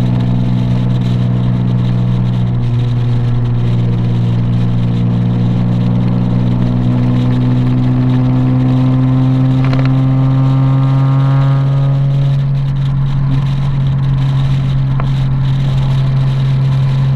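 Nissan 370Z's 3.7-litre V6 running with a steady low drone, its note rising gradually for several seconds near the middle and then easing back.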